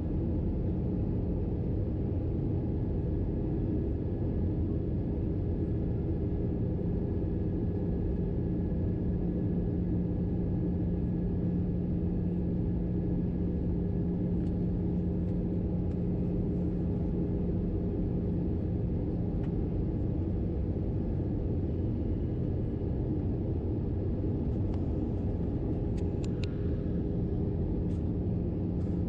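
Steady cabin rumble of an Airbus A321-211 in descent, heard from a window seat over the wing: engine and airflow noise, with a steady low hum coming in about six seconds in. A few faint ticks near the end.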